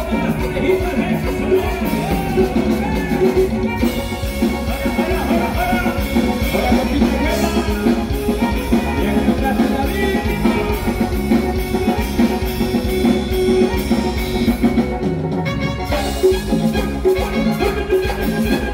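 Live band playing through a loud PA: an accordion carries the melody over electric bass and a drum kit, in a steady Latin dance beat.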